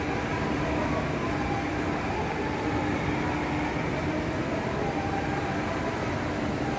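Steady ambient din of a large shopping-mall atrium: a constant rushing noise with faint steady tones that come and go.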